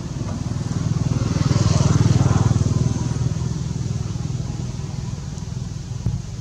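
A motor vehicle's engine passing by, growing louder to a peak about two seconds in and then slowly fading.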